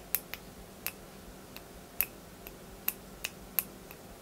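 Small switches in a converted Graflex 2.0 replica saber clamp clicking as they are worked by a thumb: about ten sharp clicks at irregular spacing.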